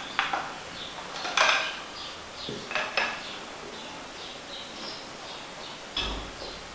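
Fork cartridge parts being handled and the damping rod and piston dropped into the oil-filled cartridge: a few sharp metal clinks and taps, with a heavier knock near the end. Birds chirp faintly in the background.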